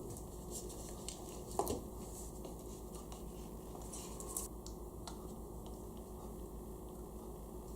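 Faint handling noises: a few small clicks and scrapes of a battery and charger being handled, over a steady low hum.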